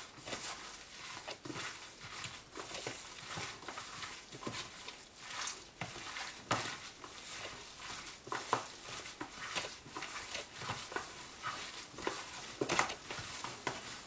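Gloved hands mixing and squeezing fish paste with sauces and curry paste in a plastic tub: a run of soft, irregular mixing noises, a few of them louder.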